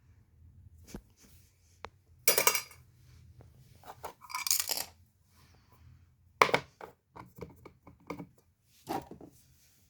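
Hand work on small parts and materials: scattered clicks and knocks with two short scraping, rustling bursts, the first about two seconds in and the second near the middle.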